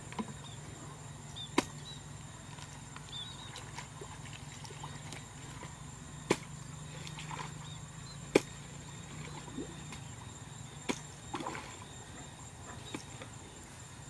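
Hoe blade chopping into wet mud in shallow water: about five sharp strikes a few seconds apart, over a steady low hum.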